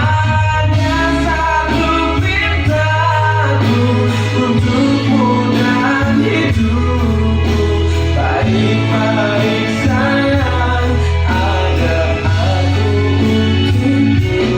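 Pop song with a male lead vocal over a heavy, sustained bass line, played back through a home hi-fi speaker system with a subwoofer.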